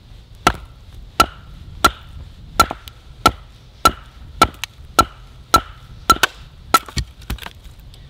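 A hatchet being batoned through a split of firewood: a baton knocks on the back of the hatchet head about a dozen times at an even pace, each knock with a short metallic ring. The last few knocks come quicker and lighter as the piece splits off.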